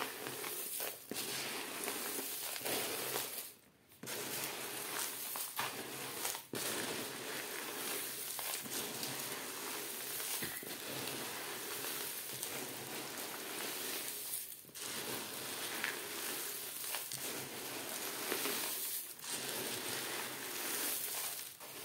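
Hands stirring and turning a dry mix of grains, seeds, flakes and pellets in a plastic tub: a continuous rustling of grains shifting against each other and the plastic, with a brief pause about four seconds in.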